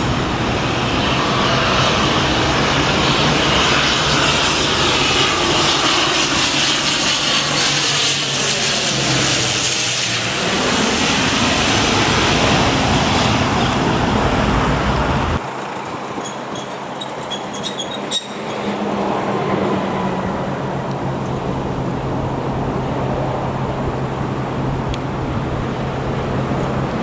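Fokker 50 twin turboprop flying low on landing approach, its propellers and engines droning steadily, with a sweeping whoosh as it passes overhead. About halfway through, the sound cuts abruptly to a quieter, steady rumble.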